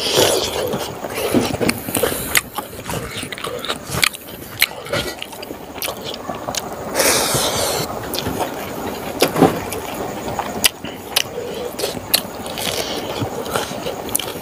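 Close-miked eating sounds: a mouthful of smoked pork and rice being chewed with wet lip smacks and many sharp mouth clicks, along with fingers squeezing rice.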